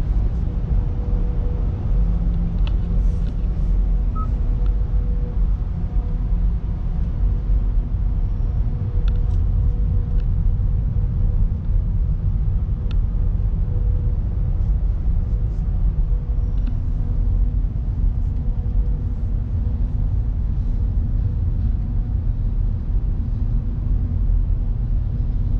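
Motor vehicle running with a steady low rumble, with a faint steady hum and a few light clicks over it.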